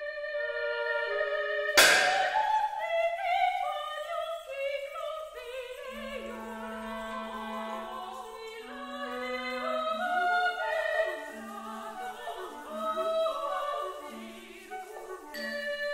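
Contemporary chamber music for two sopranos, clarinet and kitchen-object percussion. A loud stroke on a pot lid about two seconds in rings on. The sopranos then sing fast syllables of a nonsense-like Greek text over the clarinet.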